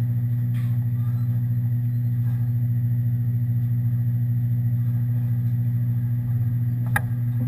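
Steady low mechanical hum, like a running motor or fan, with one short sharp crack about seven seconds in.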